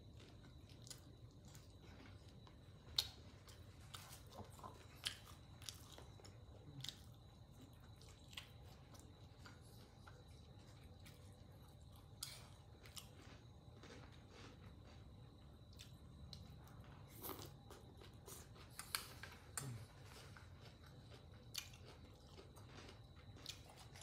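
Close-miked eating: faint chewing and crunching of crispy fried catfish and green mango salad, with scattered short sharp clicks over a low steady room hum.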